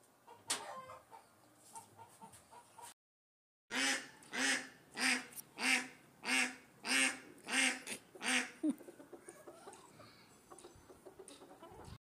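A duck quacking: a steady series of about eight loud quacks, roughly one and a half a second, then stopping. Before it there is only faint handling noise with one sharp click.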